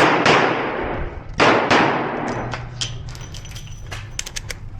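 Nighthawk Custom Korth Mongoose revolver firing .38 Special, four shots in two quick pairs about a second apart, each ringing on in the echo of an indoor range. Lighter sharp clicks and clatter follow near the end.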